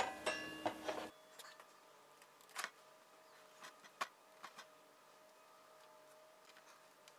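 Light clicks and small knocks from a Makita cordless circular saw being handled while its blade depth is set. The sharpest click comes at the very start, a quick run of small clicks follows within the first second, then a few scattered clicks. The motor is not running.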